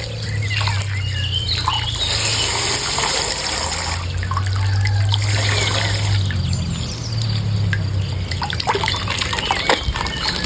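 Coloured water pouring and trickling out of a punctured plastic ice-pack bag, with small splashes and clicks throughout.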